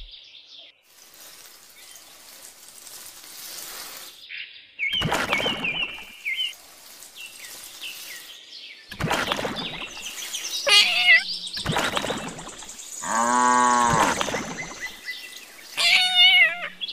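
Bird chirps and warbling trills, mixed with a few short splashing bursts of water poured from a small toy bucket. About two thirds of the way in comes a pitched call that rises and falls.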